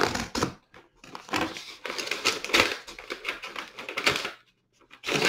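Paper packaging being handled: a manila mailer being opened and a cardboard comic mailer pulled out of it, a dense run of crisp rustles and clicks that stops about four and a half seconds in, with one more short burst near the end.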